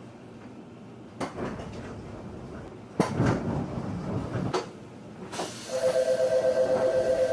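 Inside a JR 211-series electric train at a stop: a few clunks, then a hiss of compressed air about five seconds in, followed by the door chime's two-note signal sounding repeatedly as the doors work.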